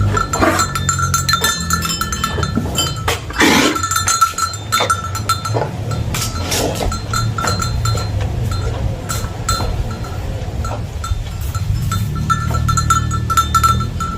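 Metal cowbell clanking repeatedly as the cow moves, over many short knocks and a steady low rumble, with a louder rough burst about three and a half seconds in.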